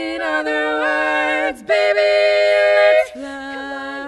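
Women's barbershop quartet singing a cappella in four-part close harmony, holding long ringing chords. The chord changes about a second and a half in and again about three seconds in.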